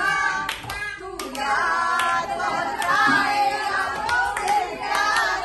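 A group of women singing together and clapping along in time during a cake cutting, the claps falling roughly once a second over the singing.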